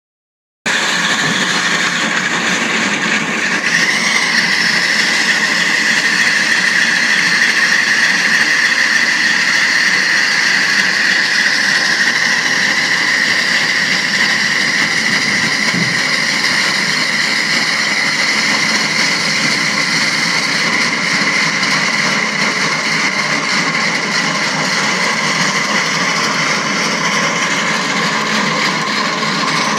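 Heavy machine running steadily at a quarry site: a loud continuous mechanical noise with a steady high whine, growing a little louder about four seconds in.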